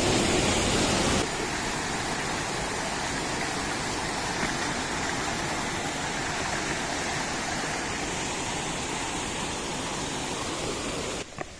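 Rushing water of a rocky mountain stream and waterfall cascading between boulders, a steady even hiss. It steps down a little in level about a second in.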